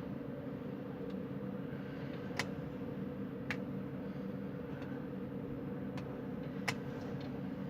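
Steady low background hum, like distant traffic or machinery, with a few sharp clicks scattered through it.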